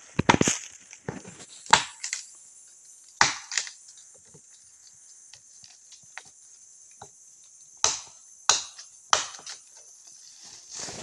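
Wood being chopped or struck by hand: about ten sharp knocks in irregular groups, with a pause of a few seconds in the middle. A steady high insect drone runs underneath.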